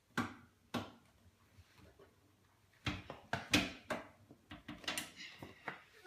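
Scattered knocks and clinks of hand tools against a dishwasher's lower panel: two single knocks, then a quicker run of knocks from about halfway through.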